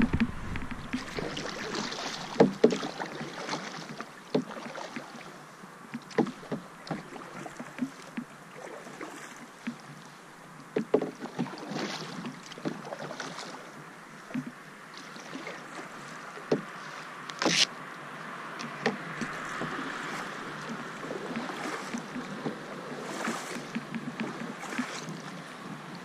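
Canoe being paddled on calm water: paddle strokes swishing and dripping, with irregular sharp knocks, the loudest about seventeen seconds in.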